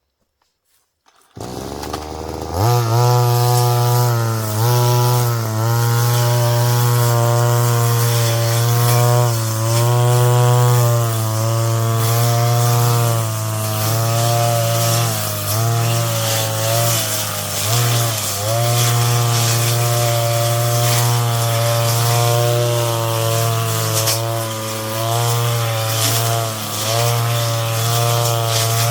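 Brush cutter engine coming in about a second in and rising to high speed, then running at a steady high pitch with several brief dips in speed.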